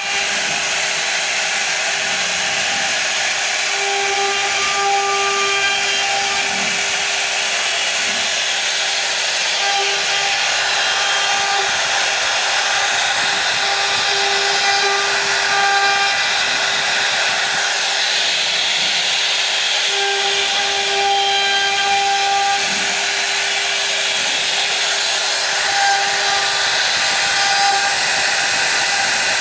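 CNC router cutting wood: a steady spindle whine over the continuous hiss of the bit cutting through the wood.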